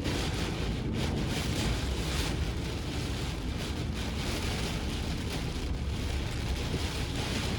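Typhoon wind and wind-driven heavy rain, a dense hiss that swells and eases in gusts over a steady low rumble.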